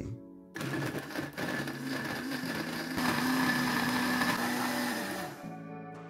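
Countertop blender motor running as it purées eggs, mango, orange, raisins and dates into a thick batter, starting about half a second in and winding down about five seconds in.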